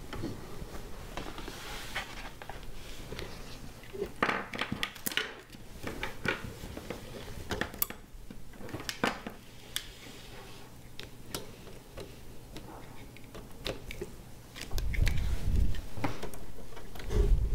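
Handling noise of an Apple G4 Cube being reassembled: its core lowered into the clear acrylic enclosure and the cube shifted on the desk, with scattered clicks, knocks and light clinks. Two low thuds come near the end as the cables are worked in at the back.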